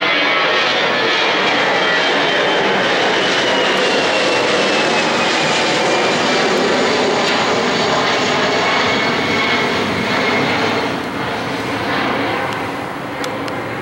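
Airbus A320's twin jet engines as it climbs out overhead after takeoff: a loud, steady rush with a high whine that slides slowly down in pitch, fading somewhat after about ten seconds as the aircraft moves away.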